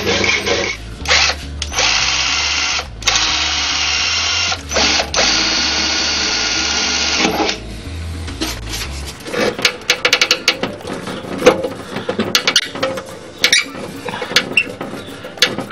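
Electric drill running in several bursts with short pauses between them, then, from about eight seconds in, a string of irregular clicks and knocks from metal parts being handled and fitted.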